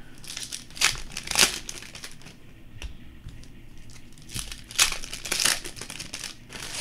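Plastic wrappers of Panini Optic basketball card rack packs crinkling as they are handled and torn open, louder about a second in and again around five seconds in.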